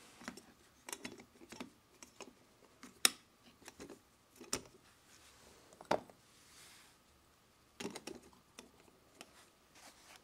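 Irregular light clicks and knocks of garbage disposal sink-mounting parts (metal flange, rubber splash guard, stopper) being handled and set down on a wooden table, the sharpest knocks about three and six seconds in.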